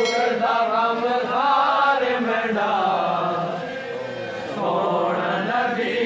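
A group of male voices, men and boys, chanting together in a slow, drawn-out devotional recitation. The chant eases off briefly about four seconds in, then picks up again.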